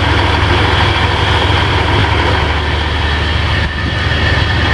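Heavy machinery running: a steady low drone under a constant hiss.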